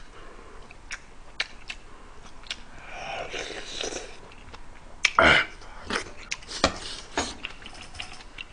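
Close-miked eating sounds: a person chewing and slurping mouthfuls of kimchi jjigae, with a scatter of sharp clicks and smacks and a few louder slurps from about five seconds in.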